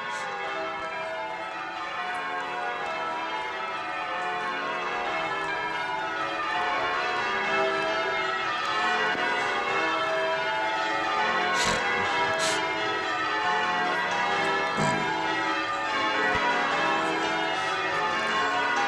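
Church tower bells being rung in changes: a peal struck in rows, each row stepping down the scale and repeating without pause. The peal grows louder about halfway through.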